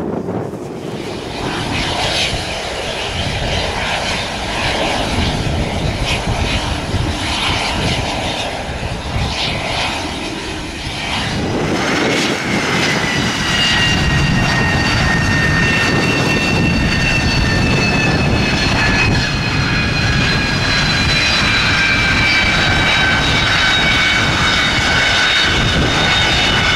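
Boeing 737-200's Pratt & Whitney JT8D turbofan engines running as the jet taxis, at first as a steady roar. About halfway through a whine rises above the roar and slowly falls in pitch.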